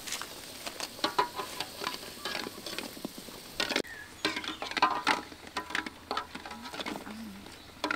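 Food-preparation sounds: irregular light clicks, taps and scraping, as of stirring and handling food in a kitchen.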